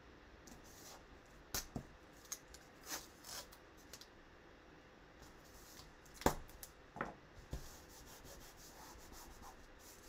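Hands laying and rubbing down green painter's masking tape around a sheet of card stock on a wooden board: soft rustling and scraping with a few sharp taps, the sharpest about six seconds in. The tape is being pressed down to seal its edges so paint won't seep underneath.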